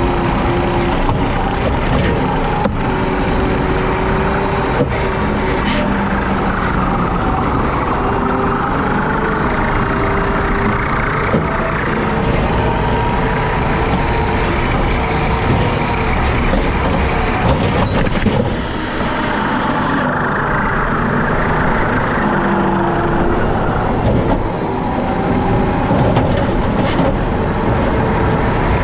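Diesel skid steer running under load while its rotary bush hog mows, a steady heavy engine and blade noise whose pitch shifts up and down. About two-thirds of the way through the sound suddenly turns duller.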